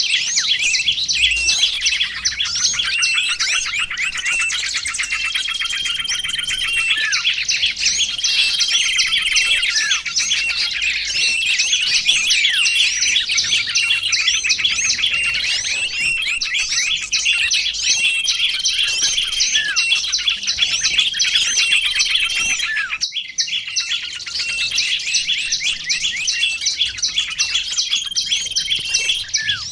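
Dense chorus of many small songbirds chirping and trilling over one another, a mixed bird-lure recording, with short steady whistled notes now and then. The chorus breaks off for a moment about 23 seconds in, then carries on.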